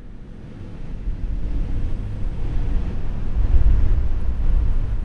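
Wind buffeting the microphone outdoors: a gusty low rumble with a hiss above it, fading in over the first second or so.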